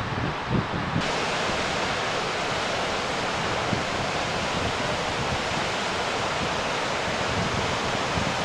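Large meltwater-river waterfall rushing in a steady, heavy roar of falling water and spray. The hiss grows brighter about a second in.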